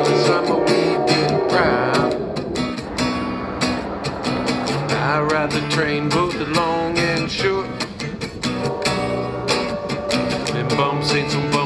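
Acoustic guitar strummed fast and steadily in a chugging rhythm meant to imitate a train rolling down the tracks, with a wavering melody line over it.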